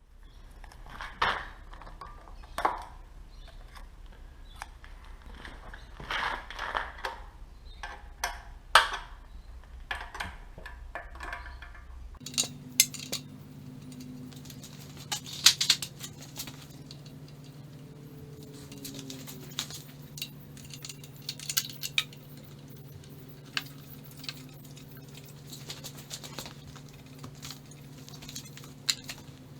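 Hand tools clinking and clicking against metal while the carburettor is taken off a small motorcycle engine, in irregular taps and rattles. A steady low hum comes in suddenly about twelve seconds in.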